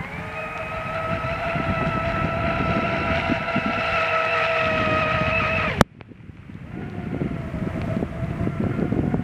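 Hot-rod RC boat's 2075kv brushless motor on 6S driving the propeller at speed, a steady high-pitched whine that climbs a little. About six seconds in it cuts off suddenly with a click, then rises again.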